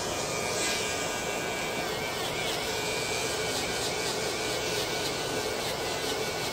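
Electric nail drill (e-file) spinning a sanding cap against callused skin on the sole of a foot, filing the callus down: a steady high-pitched whine over a sanding hiss.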